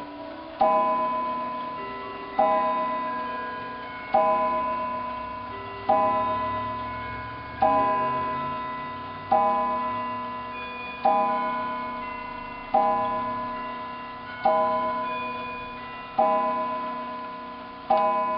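Seth Thomas tambour mantel clock striking the hour on its cathedral gong: eleven evenly spaced strokes, about one every 1.7 seconds, each ringing on and fading before the next, with the movement ticking beneath.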